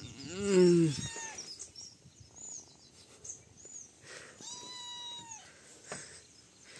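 A cat meowing twice. The first meow, near the start, is loud and falls in pitch; the second, about four and a half seconds in, is higher and steadier. Small birds chirp throughout.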